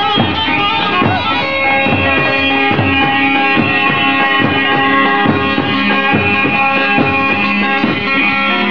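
Loud Turkish folk dance music with plucked string instruments over a steady drum beat.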